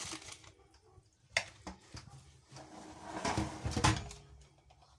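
Parchment paper rustling and knocks on a metal roasting tin as a raw whole chicken is handled and seated upright on a paper-wrapped support. A sharp knock a little over a second in, then louder rustling and handling with another knock around four seconds in.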